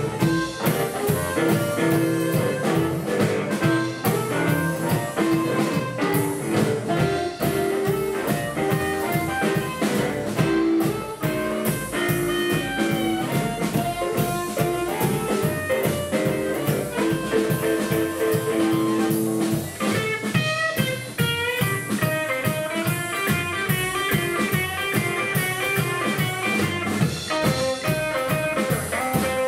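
Live blues band playing an instrumental break: a harmonica solo of held, bending notes over drums and upright double bass, giving way about twenty seconds in to a busier electric guitar solo on a hollow-body archtop.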